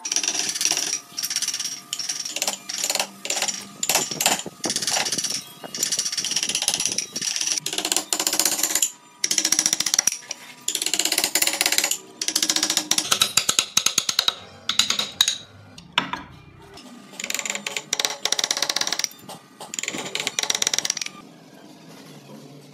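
A hand-held woodcarving chisel cutting and scraping wood in a string of short strokes, each a second or less, with brief pauses between them; the strokes stop near the end.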